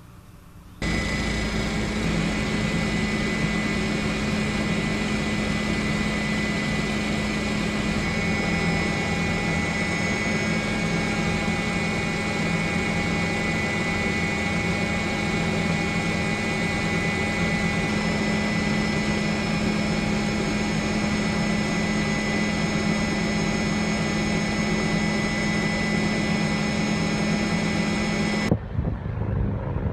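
Helicopter running steadily: a dense engine-and-rotor drone with a constant high whine over it, starting about a second in and cutting off near the end.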